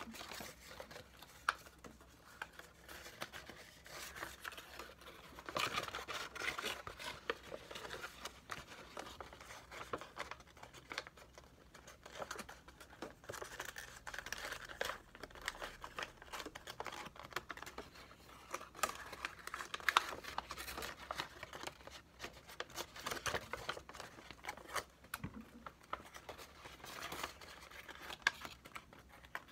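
A sheet of white paper being folded and creased by hand into a pleated origami model: irregular rustling and crinkling, with occasional sharper crackles.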